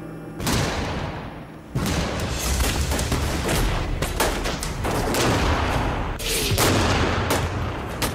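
Battle gunfire: many shots in quick succession, irregular and overlapping, starting about half a second in and growing denser from about two seconds in, over a continuous low rumble.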